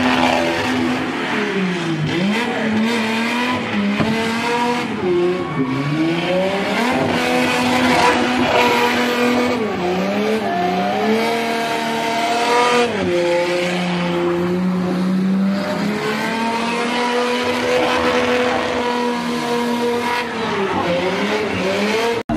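Car engine revving hard, held at high revs for long stretches and dipping and climbing back several times, with tyres screeching as the car spins doughnuts on tarmac.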